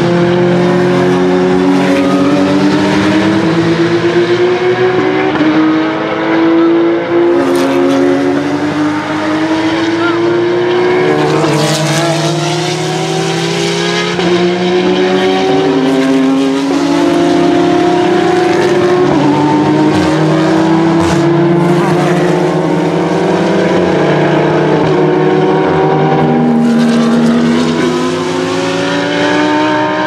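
Several GT3 and touring race cars accelerating out of a corner one after another, their engines overlapping, each rising in pitch and dropping back at every upshift.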